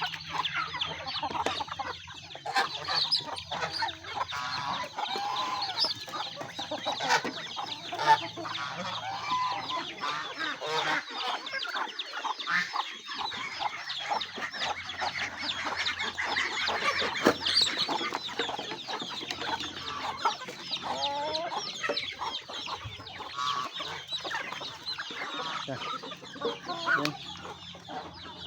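A flock of chickens clucking continuously, many birds calling over one another, with a few sharp clicks among the calls.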